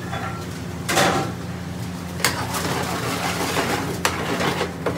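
Metal spoon and small steel bowl knocking and clinking against a frying pan as spices are tipped in and stirred: a few sharp knocks, the loudest about a second in, over a steady low hum.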